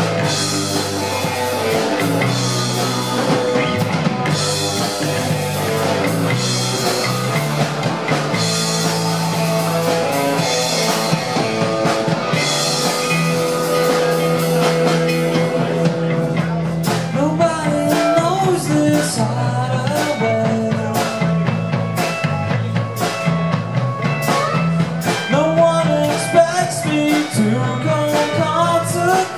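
Live rock band playing: electric guitar, electric bass and drum kit, with cymbal crashes recurring every couple of seconds. After about halfway the cymbal wash drops back and the drums hit sharper and faster under notes that slide in pitch.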